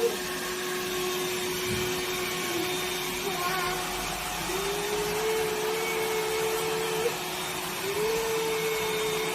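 Vacuum cleaner running steadily. Its motor whine steps up slightly in pitch a few times and drops back, as the load on it changes.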